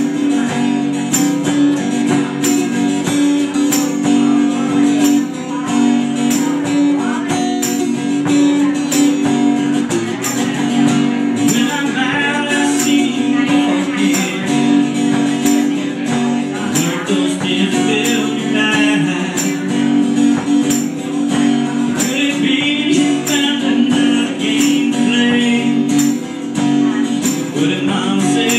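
Two acoustic guitars played live, strummed and picked together, with a steady high tick about twice a second keeping the beat.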